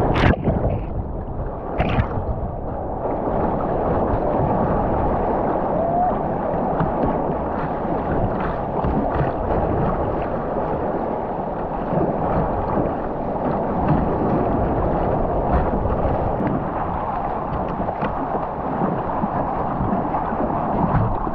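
Whitewater splashing over the bow of a kayak, with a couple of sharp splashes in the first two seconds as the bow breaks up through a wave, then a steady, muffled rush of fast river current along the hull.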